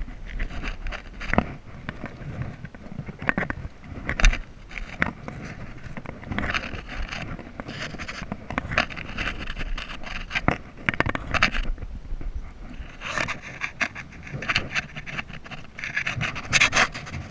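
Shoes and hands scuffing and scraping on sandstone rock during a steep scramble: many short, irregular scrapes and knocks.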